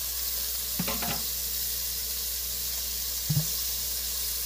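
Grated onion and garlic sizzling in hot oil in a stainless steel pot as chopped collard greens go in, a steady frying hiss. Two short knocks sound about one and three seconds in.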